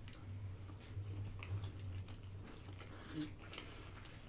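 A person chewing food close to the microphone, with scattered soft wet mouth clicks and smacks, over a low steady hum.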